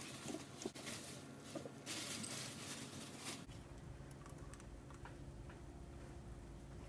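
Faint scraping and rustling of miniature food being handled with a tiny knife on a small board, then a few light clicks as tiny utensils touch a miniature pot. A low steady hum comes in about halfway through.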